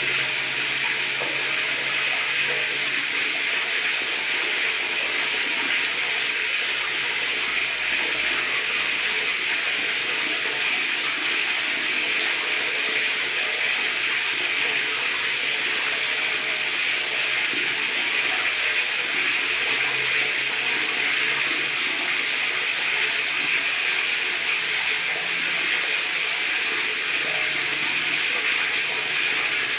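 Tap water running steadily into a bathtub, gurgling and splashing without a break.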